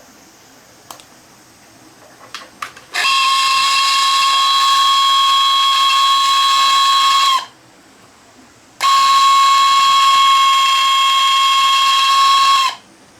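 Battery-powered sprayer's small electric motor and pump running in two bursts of about four seconds each, with a steady high-pitched whine that starts and stops abruptly.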